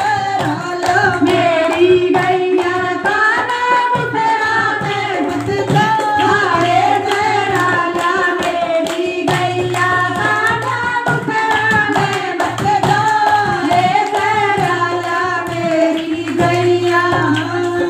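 Devotional bhajan to Krishna sung by voices, accompanied by a dholak, a two-headed barrel drum played by hand in a steady rhythm.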